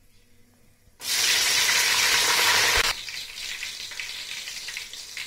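Slit green chillies dropped into hot ghee and oil with whole spices, sizzling loudly as they hit the fat about a second in, then settling to a quieter steady sizzle after about two seconds.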